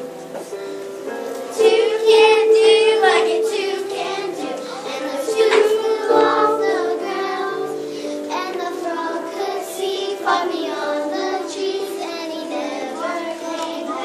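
A song with instrumental accompaniment and children singing, growing louder about two seconds in.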